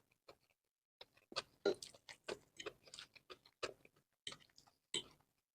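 Mouth sounds of someone chewing stir-fried spicy noodles: a quick, irregular run of short clicks and smacks, starting about a second in.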